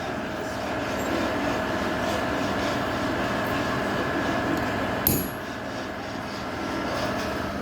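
A hammer strikes a centre punch into mild steel once, sharply, about five seconds in, marking a hole centre for drilling. Under it runs a steady hum of workshop machinery, which drops a little after the blow.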